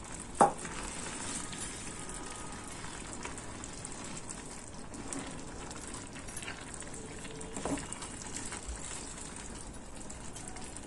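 Grated carrot halwa sizzling and bubbling in a steel pan as a wooden spatula stirs it through its sugar syrup and milk. There is a sharp knock about half a second in and a softer one near eight seconds.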